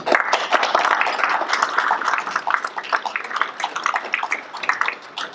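Audience applause: many people clapping together, thinning out near the end.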